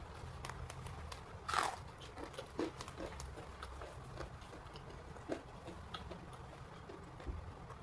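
Close-miked mouth sounds of a person eating rice with sambal, fried tempe and raw white cabbage: wet chewing and small clicks, with a few louder crunchy bites.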